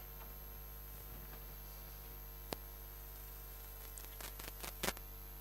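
Quiet room tone with a steady low electrical hum, broken by one sharp click about two and a half seconds in and a quick run of clicks and knocks near the end.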